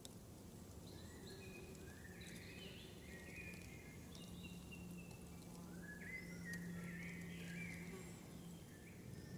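Woodland birds singing, a string of short high whistled phrases, some rising or falling, over a low background rumble with a faint steady hum.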